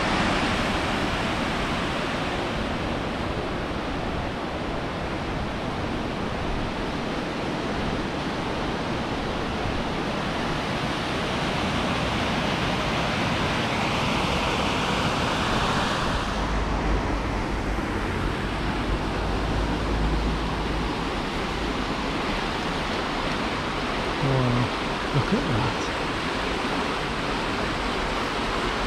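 Swollen beck in spate: fast-flowing water rushing steadily.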